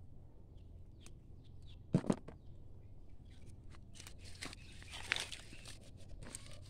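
Chili plants rustling and stems snapping as peppers are picked off by hand, with two loud sharp clicks close together about two seconds in and more crackling rustle later.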